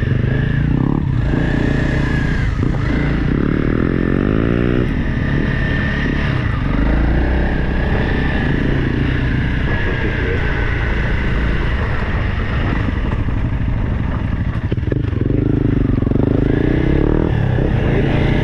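Motorcycle engine running while riding, its pitch rising and falling with the throttle.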